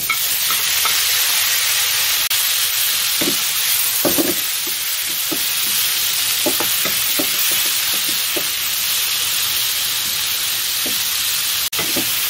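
Sliced bitter gourd sizzling steadily in hot oil in a wok over turned-up heat, with a wooden spatula making short knocks and scrapes as the slices are stir-fried.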